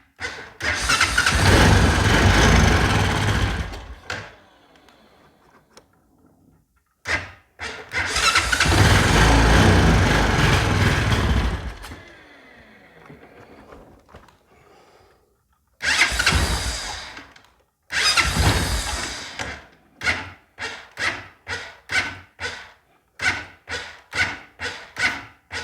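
Honda Foreman ATV's electric starter cranking its single-cylinder engine over in several tries: two long cranks of a few seconds each, two shorter ones, then a quick string of short bursts near the end. The ATV has a no-start fault and is being cranked on a jumper box, with the owner suspecting a weak battery or a bad starter.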